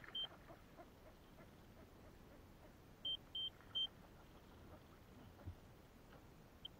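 Three short, high-pitched electronic beeps in quick succession about three seconds in, with a few faint ticks in the first second or so.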